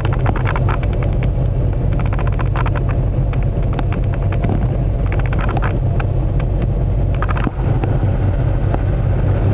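Heavy wind buffeting the phone's microphone on a ferry deck: a loud, steady low rumble with constant crackling.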